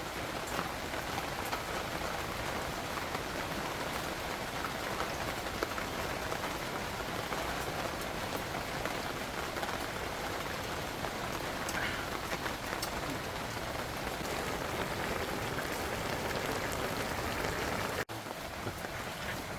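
Steady rain falling, an even hiss with scattered drop ticks, which cuts out for an instant about eighteen seconds in.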